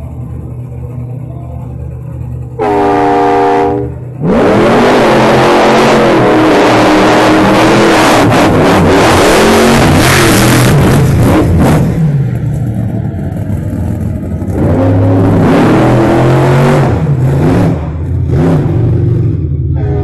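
Monster truck engines revving hard at close range, with rising and falling pitch as the throttle is worked. A short steady-pitched blast comes about three seconds in, then loud revving from about four seconds, easing off around twelve seconds and coming back loud from about fifteen to eighteen seconds.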